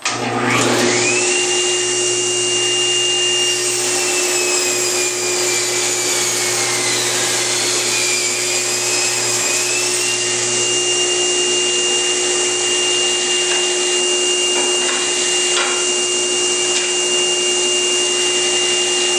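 Table saw with a Micro-Kerf40 thin-kerf blade switching on and whining up to speed. About three seconds in, the whine drops in pitch under load for about six seconds as the blade rips a thin strip off a cherry board, then rises back to a steady free-running whine once through the cut.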